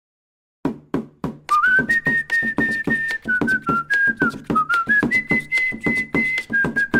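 Show theme music: a whistled melody of held, stepping notes over a quick percussion beat. The beat comes in after a brief silence, and the whistling joins about a second later.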